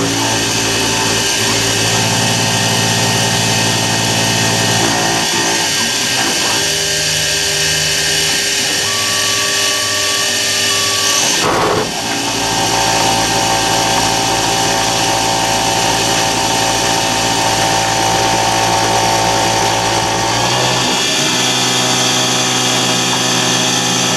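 CNC mini mill cutting an aluminium block with an end mill: a steady, loud machining noise with several steady tones that change pitch a few times, and a brief dip about twelve seconds in.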